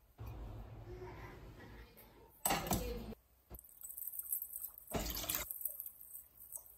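Water poured from a plastic jug into a stainless steel saucepan, coming in uneven spells with a couple of louder splashes.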